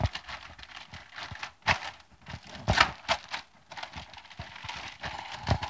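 Zip-top plastic bag crinkling and rustling in irregular strokes as hands knead raw chicken pieces in an olive-oil and lemon-juice marinade inside it.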